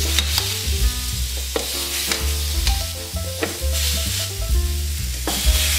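Eggplant and zucchini slices sizzling on the hot plate of an electric contact grill as they are laid on, under background music.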